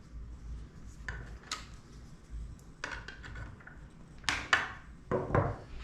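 Drone parts and tools being handled during a repair: scattered clicks and knocks with some rubbing, the loudest a quick pair about four and a half seconds in.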